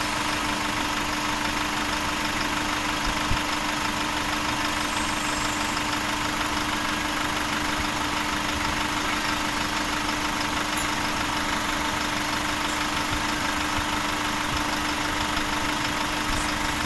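Hyundai 2.5-litre turbo-diesel engine idling steadily.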